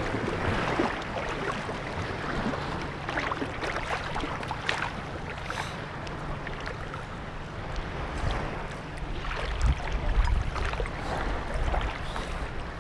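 Sea water sloshing and splashing around people wading chest-deep in calm shallows, with wind buffeting the microphone and a faint steady low drone underneath.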